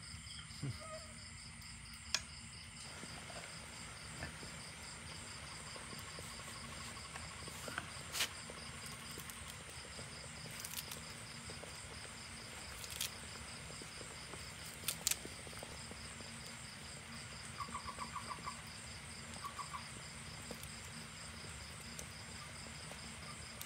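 Faint, steady chirring of insects in a rapid even pulse, with a few scattered light clicks. About three quarters of the way through there is a short quick run of lower chirps.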